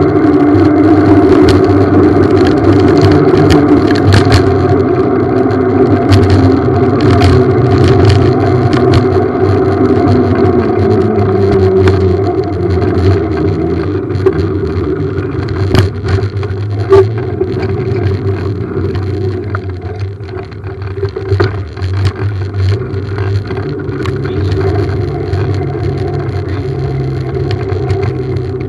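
Steady low drone of a small vehicle rolling over asphalt, with rattles and scattered knocks. It drops in pitch about twelve seconds in and is quieter in the second half.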